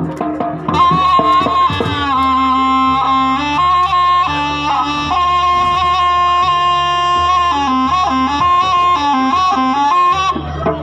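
Jaranan accompaniment: a slompret (Javanese shawm) playing a held, reedy melody over steady low tones, with a few drum strokes in the first couple of seconds.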